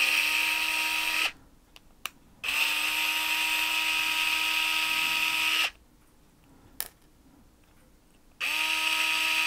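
Small cordless electric screwdriver whining at a steady pitch as it backs out the screws of an airsoft pistol's hop-up chamber. It runs in three bursts: one stops about a second in, a longer one runs for about three seconds, and another starts near the end.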